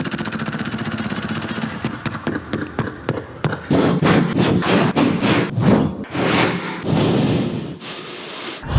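Vocal sound effects made by a man with his mouth into a microphone. They start as a fast, even rattling pulse for about three seconds, then turn into a run of short, irregular noisy bursts.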